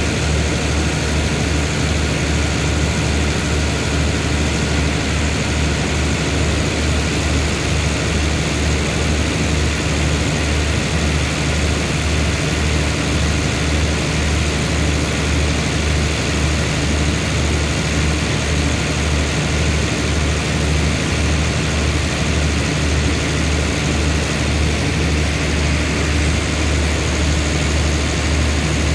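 Diesel engine of a standing express train idling, a steady low throb with an even, fast pulse.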